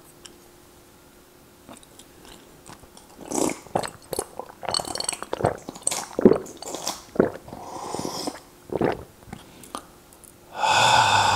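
Tomato soup being drunk straight from the bowl: a few quiet seconds, then a series of irregular slurps and gulps. Near the end comes a loud voiced exclamation.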